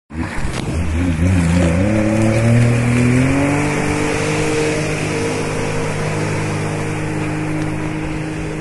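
Yamaha jet ski engine revving up as it pulls away, its pitch rising over the first few seconds and then holding steady at speed over a constant hiss, fading slightly as it moves off.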